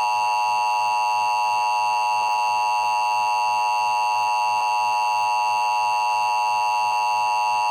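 Emergency Alert System attention signal: a steady two-tone alarm (853 and 960 Hz) that holds without change for about eight seconds, then cuts off abruptly, announcing that an emergency alert message follows.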